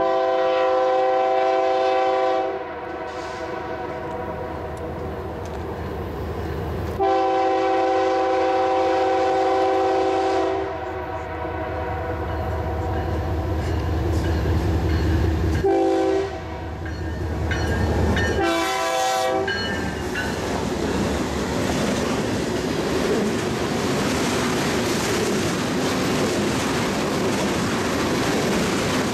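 CSX freight locomotive's air horn sounding a multi-note chord: two long blasts, a short one and a fourth blast, the grade-crossing signal. It is followed by a steady rumble of steel wheels as the train of tank cars rolls past close by.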